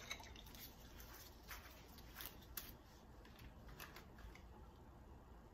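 Near silence with a scatter of faint clicks and rustles from gloved hands handling an olive oil bottle over a plate, mostly in the first four seconds.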